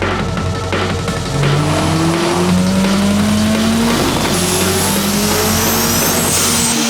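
Turbocharged Honda Civic engine accelerating hard, its pitch climbing, dropping briefly at a gear change about four seconds in, then climbing again.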